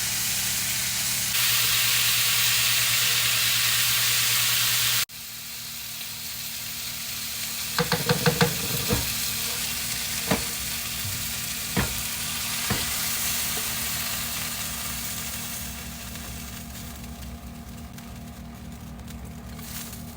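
Chopped vegetables sizzling as they sauté in butter in a pan while being stirred, with a sudden break in the sound about five seconds in. A quick run of sharp clicks comes around eight seconds and a few single clicks follow, and the sizzle grows softer near the end.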